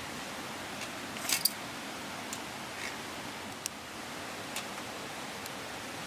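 Steady rush of a river flowing, with a short clatter of small sharp clicks a little over a second in and a few single ticks after.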